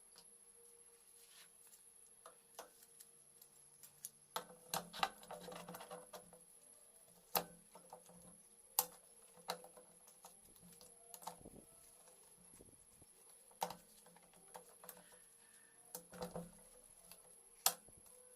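Scattered sharp clicks and light knocks of small tools and metal engine parts being handled and set down, about nine louder ones at uneven intervals, with a brief rustle about five seconds in, over a faint steady high hum.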